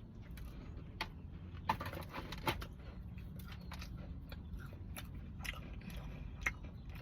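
Small clicks and rustles of a cookie being handled, then bitten and chewed, over a low steady hum in the car cabin.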